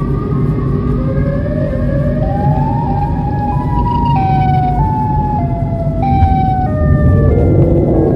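A siren wailing, rising slowly in pitch over the first few seconds and then jumping up and down between set pitches, over the steady low rumble of a car driving on the road.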